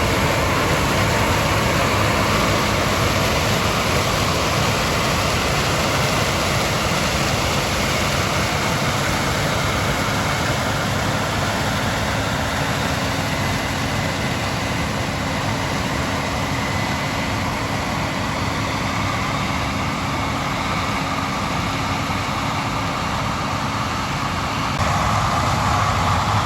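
Farm harvesting machinery engines running steadily, a constant mechanical drone with a faint steady hum.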